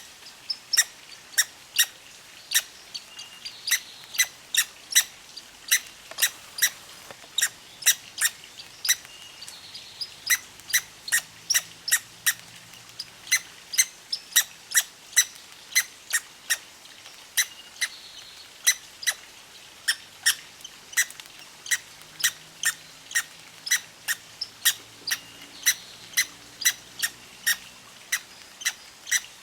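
Red squirrel making short, sharp, hiccup-like calls over and over, about two a second, with a few brief pauses.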